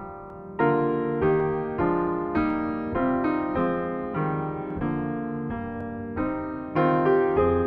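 Solo grand piano playing a slow chordal piece, notes struck about every half second and each left to ring, with louder chords entering about half a second in and again near the end.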